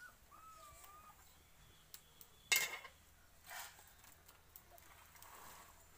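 Chopped cauliflower greens being tipped off a bamboo winnowing tray into a plastic bowl: a sharp clatter about two and a half seconds in, then a shorter rustle a second later and a soft one near the end.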